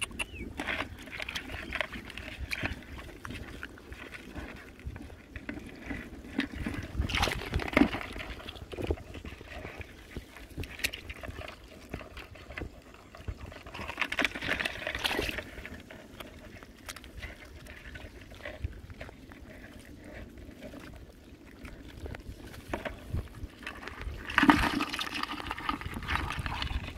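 Hands splashing and sloshing in shallow muddy water while feeling for crabs, with small clicks and rustles throughout and three louder bouts of splashing, about seven, fourteen and twenty-five seconds in.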